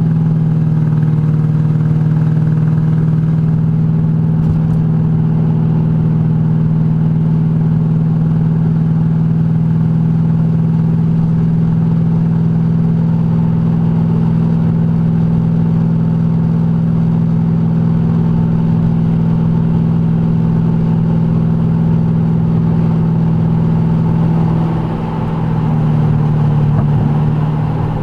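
Lexus LS400's 1UZ V8 running loud and steady at highway cruising speed, about 80 mph, heard from inside the car, with its exhaust not yet fully built and the interior still out. About 25 seconds in the drone dips briefly, then picks back up.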